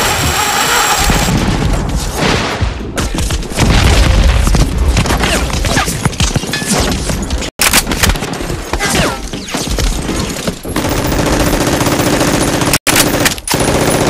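Gunfire sound effects for a staged shootout: rapid bursts of automatic fire mixed with single shots, broken twice by abrupt edits that cut the sound for an instant.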